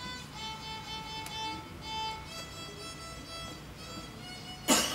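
Solo violin played by a young child: a simple tune of separate bowed notes, several held a little longer. Near the end a brief, loud, sharp knock cuts across the playing.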